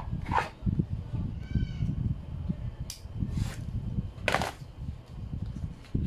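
Craft materials being handled on a cutting mat: PVC foam board pieces, a plastic squeegee and a utility knife are picked up and set down. This gives a few sharp taps and clicks over a low steady background rumble.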